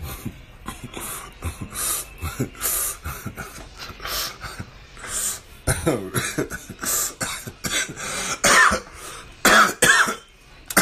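A man coughing in a long fit of short repeated coughs, heaviest and loudest in the second half.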